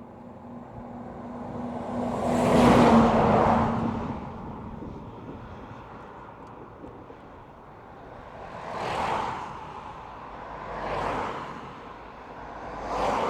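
Vehicles passing one after another: a loud one that swells and fades about three seconds in, with a steady low tone beneath it until about four seconds in, then three quieter ones about two seconds apart near the end.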